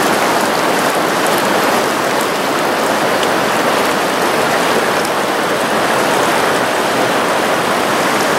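Shallow gravel-bed creek water rushing steadily over stones, a loud even wash close to the microphone.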